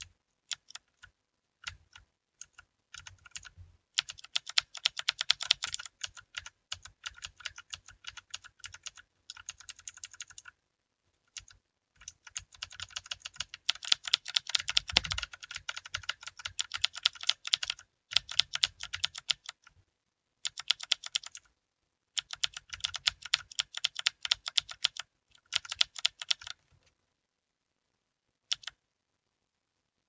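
Redragon mechanical keyboard being typed on. A few separate keystrokes come first, then fast runs of keystrokes in bursts of several seconds with short pauses between them. A single keystroke sounds near the end.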